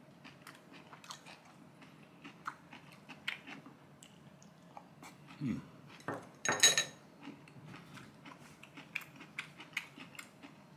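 A person eating: chewing, with small clicks and taps of chopsticks and tableware. About six and a half seconds in comes a louder clink of a dish with a brief ring.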